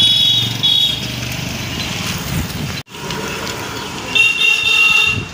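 A vehicle horn honking twice over street noise: one blast ending about a second in, another near the end.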